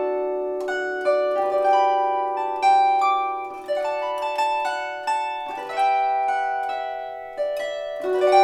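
Gusli, the Russian plucked psaltery, played solo: a melody of plucked notes that ring on and fade slowly over a sustained low note.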